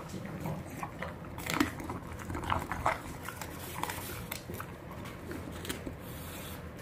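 An English bulldog chewing chunks of raw chicken food, with irregular biting and chewing clicks and crunches, a couple of them louder about one and a half and three seconds in.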